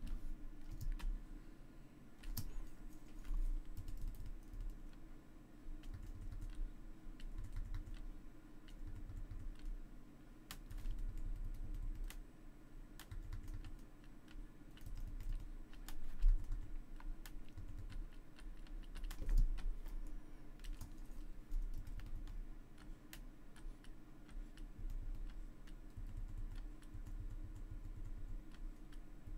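Scattered clicks of a computer keyboard and pointing device during desk work, with soft low thumps in irregular patches over a steady low hum.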